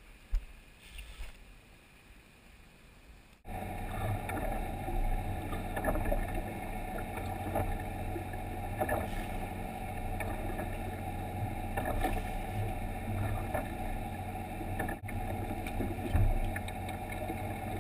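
Boat engine running steadily, cutting in abruptly about three and a half seconds in, with a few knocks over it.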